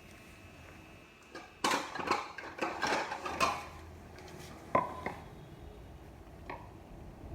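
Clattering knocks of hard objects against each other, then a single sharper clink with a short ring about five seconds in and a faint knock near the end.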